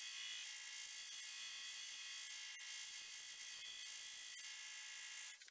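Belt grinder running with a small copper fitting held against the belt, a steady high-pitched grinding hiss with a few faint ticks. It cuts off abruptly near the end.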